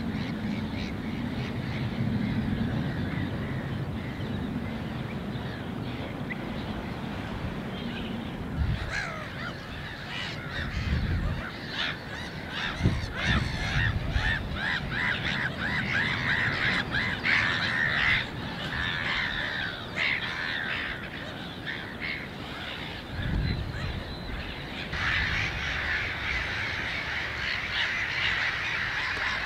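A low rumble, then from about a third of the way in, many waterbirds calling at once: a dense, overlapping chorus of short, harsh calls that carries on to the end.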